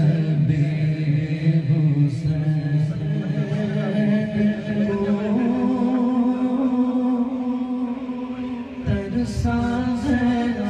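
Male voice singing an Urdu manqabat (devotional praise song) unaccompanied, in long drawn-out held notes. The pitch steps up about five seconds in, and there is a brief break near the end.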